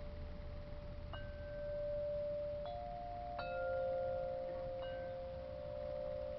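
Wind chimes ringing: a new note is struck about four times, and each rings on long, overlapping the others.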